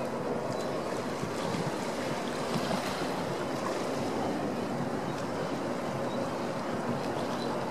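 Steady waterside ambience: water washing and wind on the microphone, with a faint steady drone from the passing harbour ferry under it and a few faint high chirps.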